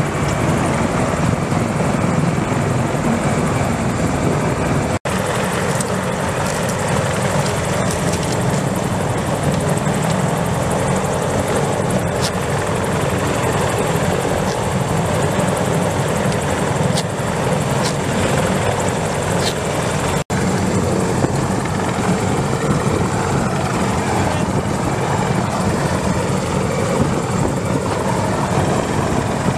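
Steady rotor and engine noise of a CH-53E Super Stallion heavy-lift helicopter, cutting out abruptly twice for an instant.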